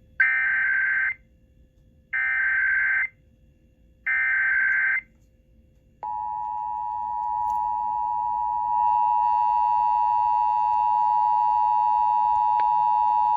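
Emergency Alert System header announcing a required monthly test: three one-second bursts of SAME digital data tones, warbling near 2 kHz, then about six seconds in the steady two-tone EAS attention signal (853 and 960 Hz), which grows a little louder about nine seconds in and carries on.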